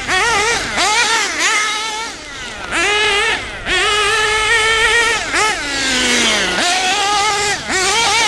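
Kyosho KE21 nitro engine in an MP9 1/8 buggy, fitted with a new tuned exhaust, revving hard as the buggy is driven. It goes through quick throttle blips, is held high for about a second a couple of times, drops in a long falling note as it slows about six seconds in, then comes back up to speed.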